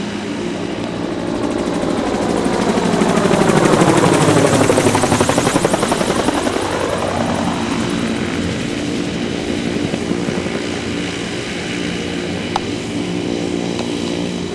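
A gyroplane flying low overhead, its engine and propeller growing louder, peaking about four to five seconds in, then dropping in pitch and fading as it passes. A steady engine drone continues afterwards.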